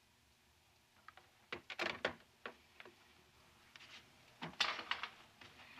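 A series of short knocks and clunks, like a door or objects being handled, starting about a second in, clustering around two seconds in and again near the end.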